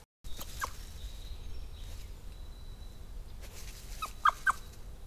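European badger cubs squeaking: short, high calls, two just after the start and three in quick succession about four seconds in, over a low steady background noise.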